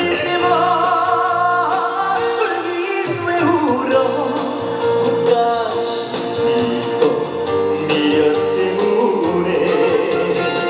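Trot song's instrumental break played loud over a PA: a held melody line over a steady beat.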